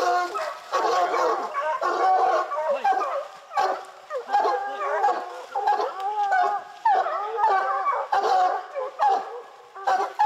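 Pack of bear hounds baying and bawling, many voices overlapping without a break, the sound of dogs that have the bear bayed up.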